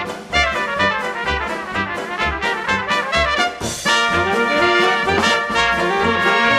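Background music: a 1920s-style dance band with trumpet and trombone over a steady bass beat, with a crash about halfway through.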